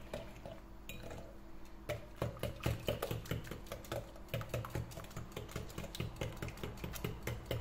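Small metal wire whisk beating thin cake batter in a glass bowl: quick, irregular clicking and tapping of the wire against the glass as it stirs.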